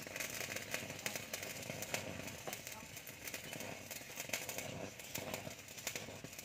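Electric arc of a stick (electrode) welder from an inverter welding machine, burning through steel rebar to cut it: a continuous, irregular crackling sizzle.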